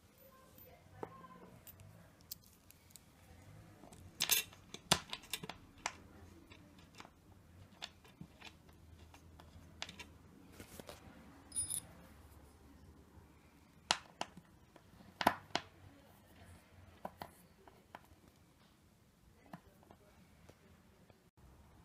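Scattered clicks and taps of a desk chair's metal seat bracket and its bolts being handled, threaded in by hand and turned with an Allen key against the seat, loudest in two clusters about four seconds in and about fourteen seconds in.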